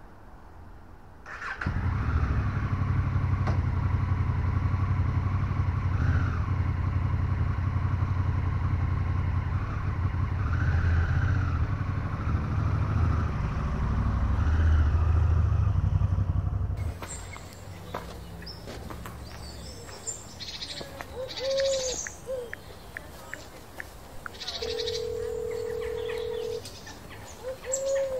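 Honda Africa Twin CRF1000L's parallel-twin engine starting up about a second in and idling steadily, with a few slight rises in revs. About seventeen seconds in the engine sound cuts off abruptly, leaving birds chirping and two steady held tones near the end.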